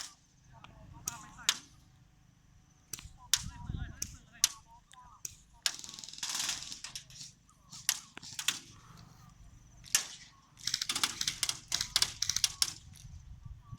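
Airsoft guns firing: scattered single sharp shots, then a rapid burst of about two seconds near the end. A hiss lasting about a second comes midway.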